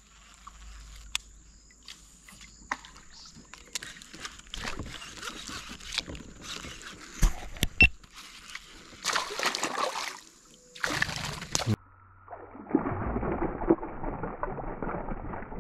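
Scattered clicks and knocks of fishing tackle handled in a kayak. After an abrupt cut about twelve seconds in comes steady water splashing as a hooked piraputanga thrashes at the surface beside the kayak.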